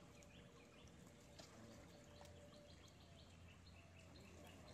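Near silence: faint outdoor background with a run of soft bird chirps in the second half.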